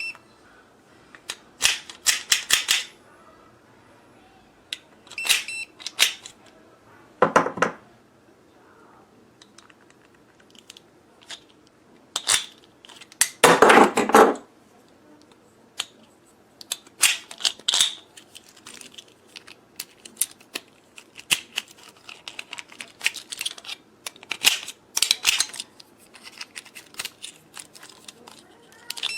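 Irregular clicks, taps and rattles of small hard objects being handled, with louder clattering bursts about 7 and 13 to 14 seconds in.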